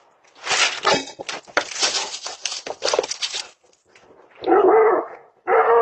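A dog barking: a stretch of harsh, noisy barking and commotion over the first few seconds, then two drawn-out barks of about a second each near the end.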